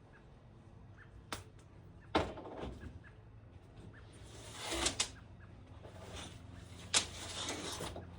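Handling noise of rope being drawn through a hunting saddle's belt channel: fabric and rope rustling and scraping in longer swishes, with three sharp knocks, over a steady low hum.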